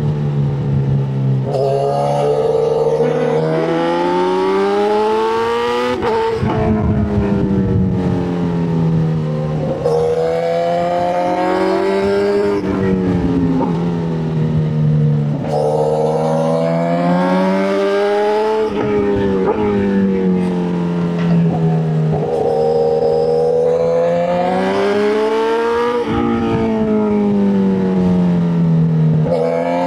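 Motorcycle engine being ridden hard, its pitch climbing for a few seconds and then dropping sharply, over and over about every three to four seconds as the throttle is worked.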